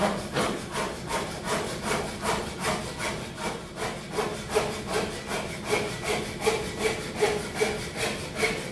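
Japanese pull saw crosscutting a piece of wood by hand, in quick even strokes at about three a second, cutting on the pull stroke.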